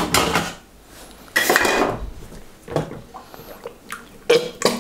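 Kitchen handling noises: a plastic mixing bowl and cartons knocked, set down and shifted on a stainless-steel worktop, in a few short clattering bursts with small knocks between, the longest about a second and a half in.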